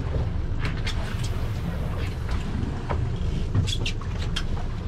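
Steady low rumble of a sportfishing boat on open water with wind on the microphone, broken by a few short sharp ticks about a second in and again near the end.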